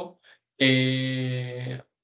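A man's voice holding one drawn-out filler sound, an 'eeh', at a steady pitch for a little over a second: a hesitation between phrases of speech.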